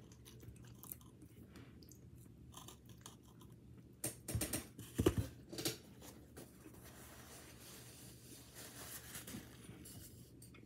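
Close-up chewing of a Hot Pocket's pastry crust, with soft wet mouth sounds and small clicks, and a cluster of louder crunches about four to six seconds in.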